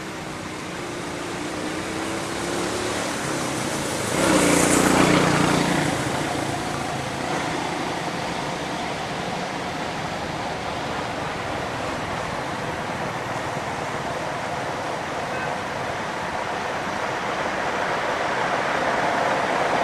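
Steady outdoor noise of motor traffic, with a louder rush for about two seconds starting some four seconds in, as of a vehicle passing close.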